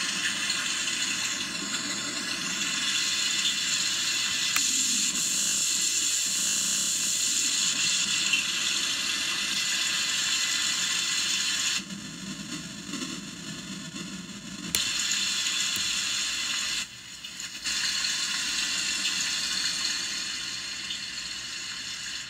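Circuit-bent Homedics Sound Spa SS-2000 sound machine playing through its line output at bent pitch: a dense, steady hissing wash with a high whine that glides down and back up about two seconds in. The sound thins out around twelve seconds in, surges back a few seconds later, drops out briefly again, and fades off at the very end.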